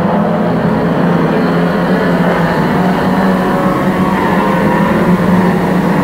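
Several 1300cc saloon stock cars racing in a pack, their engines blending into one steady, loud drone with no single car or impact standing out.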